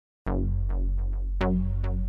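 Electronic background music with a steady bass and a struck, plucked-sounding beat, starting about a quarter second in.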